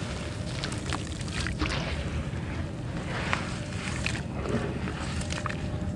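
Dry red dirt crumbling in the hands and trickling into a basin of water, then hands splashing and sloshing through the muddy water, with scattered crackles and splashes over a steady low rumble.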